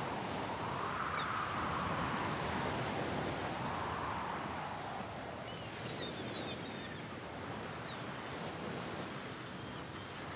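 Sea surf washing on a shore: a steady rushing hiss that swells and eases every few seconds. A few small bird chirps come in about six seconds in.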